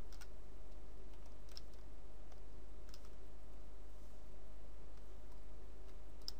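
A handful of short, sharp clicks from a computer mouse and keyboard, spaced a second or more apart, over a steady low hum.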